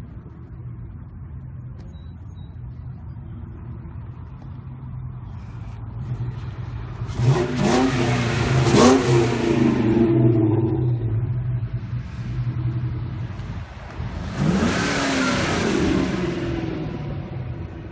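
Ford Mustangs idling, then one revs up and accelerates away about seven seconds in, its engine note climbing twice. A second Mustang does the same about fourteen seconds in.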